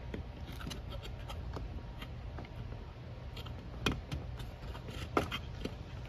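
Light scrapes and clicks of a small curved PVC piece being handled and pressed against a 4-inch PVC pipe while it is test-fitted over a hole, with two sharper plastic clicks about four and five seconds in.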